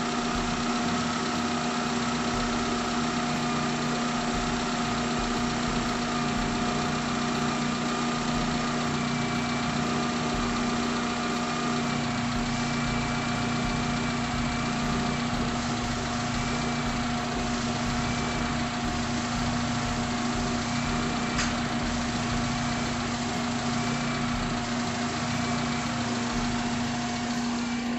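Daihatsu Taruna EFI four-cylinder petrol engine idling steadily, heard close up in the open engine bay, while its idle speed is turned down from about 1100 rpm toward 800 rpm.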